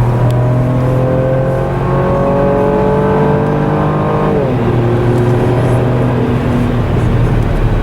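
2018 Holden Commodore's V6 engine pulling hard under full throttle, heard from inside the cabin, its pitch climbing steadily. About halfway through it drops sharply on an upshift, then pulls on at lower revs.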